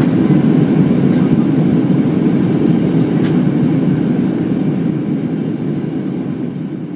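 Steady cabin roar of an Airbus A319 in climb after take-off: engine and airflow noise heard from a window seat inside the cabin, sinking gradually over the last couple of seconds. A single sharp click about three seconds in.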